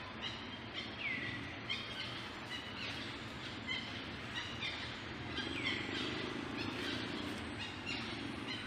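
Outdoor ambience of birds chirping, with two longer calls swooping down, about a second in and again around five and a half seconds in, over a steady low hum.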